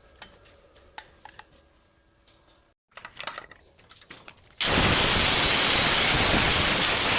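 Faint clicks and taps of small parts being handled, then a little past halfway an electric power tool starts abruptly and runs steadily with a loud hiss and a high whine.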